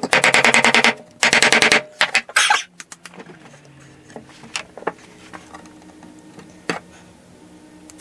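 Fret wire being tapped into the fretboard slots with a fret hammer, many quick ringing strikes in a row, stopping about two and a half seconds in. A few single sharp taps follow over a faint steady hum.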